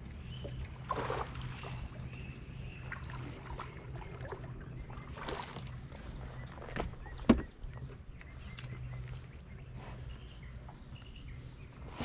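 Steady low hum of a bass boat's electric trolling motor, under scattered clicks and rustles of a fish being reeled in and handled, with one sharp knock about seven seconds in. A few faint bird chirps in the first seconds.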